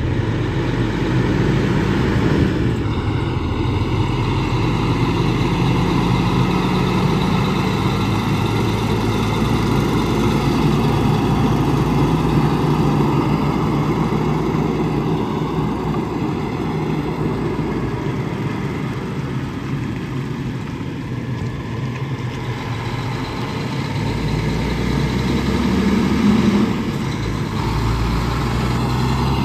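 Heavy diesel trucks running close by, with engine tones that step up and down in pitch several times over continuous road and engine noise.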